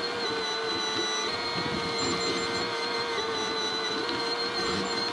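Cat 304E mini excavator running under work: a steady engine drone with a high hydraulic whine on top, the pitch stepping slightly a few times as the boom and bucket move to smooth out dirt.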